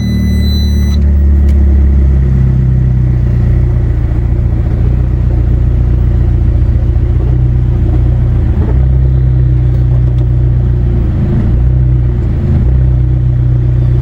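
Fiat 500 Turbo's 1.4-litre turbocharged four-cylinder running steadily near idle in reverse as the manual clutch is let out until it engages, with a rattle that the owner suspects comes from the flywheel or the motor mounts.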